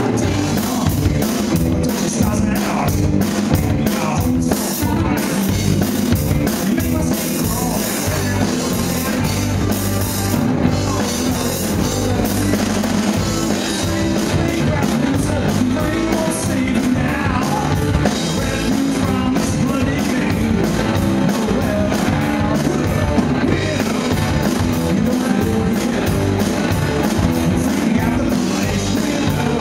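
Live rock band playing: electric guitars over a drum kit, with singing in places.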